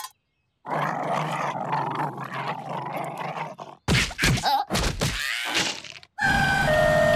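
Cartoon dog sounds: a steady low growl for about three seconds, then a run of short wavering barks and yelps. A two-tone emergency siren starts near the end.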